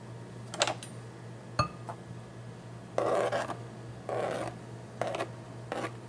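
Small kachki fish being mixed with spices and oil in a bowl: a click, then a knock that rings briefly about a second and a half in, then four short scraping strokes in the bowl, the first two the longest.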